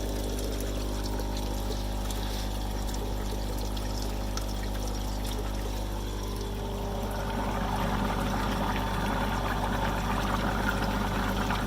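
Dirty duck-pond water pouring out of the tank through an opened drain valve, getting louder about seven seconds in, over a steady low hum.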